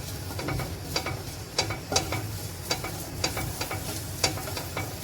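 Curry leaves being stirred and roasted in a hot pan: a spatula scraping and knocking against the pan at irregular intervals, over a low steady hum.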